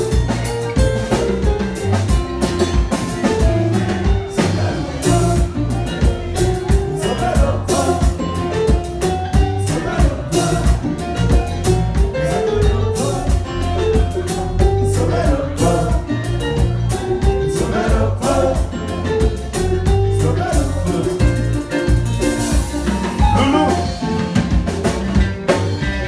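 Live Haitian kompa band playing: drum kit keeping a steady beat under acoustic guitar and keyboard, with a voice singing over it.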